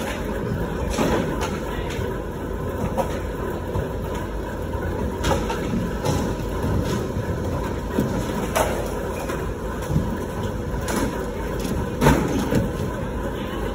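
Wheels rolling over concrete and wooden skatepark ramps, a steady rumble broken by scattered knocks and clacks. The loudest knock, about twelve seconds in, is an inline skate landing on the ramp box.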